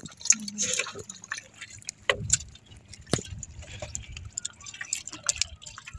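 Scattered knocks and clicks with water splashing and dripping aboard a small wooden outrigger fishing boat.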